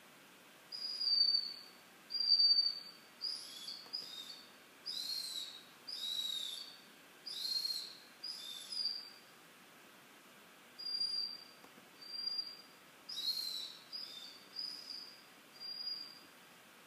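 Doberman whining: about fifteen short, high-pitched whines in two bouts with a pause between them, some dropping in pitch at the end.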